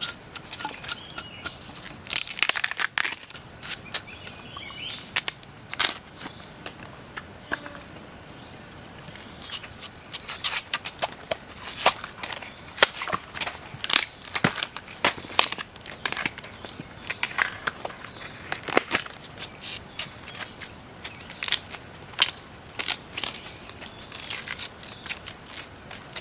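Irregular crunching and crackling, many sharp clicks coming thick and fast, densest in the middle.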